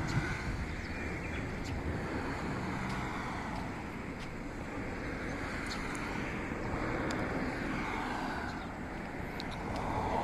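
Diesel railcar on the unelectrified Yodo Line running along the track: a steady rumble with a few faint clicks.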